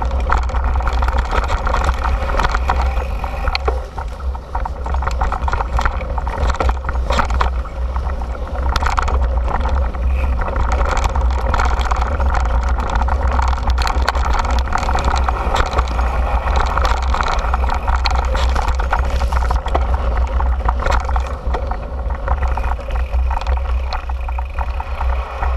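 Mountain bike riding fast over a dirt trail: constant wind rumble on the camera's microphone, with the clatter and rattle of the bike and its tyres over the rough ground.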